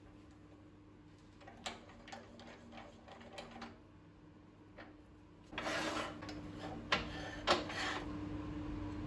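Hand-handling noises at a wood lathe: a few faint clicks and taps, then a short scrape and two sharp knocks as a cut glass wine-bottle section is set against the turned wood. A faint steady hum runs underneath.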